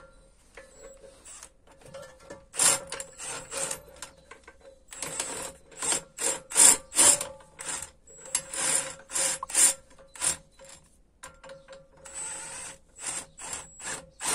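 Cordless impact wrench hammering the threaded rods of a pair of coil spring compressors tight in a series of short bursts with brief pauses between, compressing the coil spring on a MacPherson strut.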